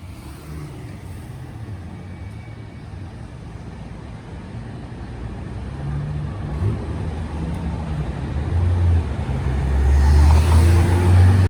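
A road vehicle's engine with a low drone, growing steadily louder as it comes closer, then cutting off suddenly near the end.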